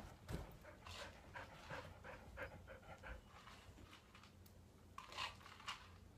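A puppy panting faintly, with short soft sounds now and then.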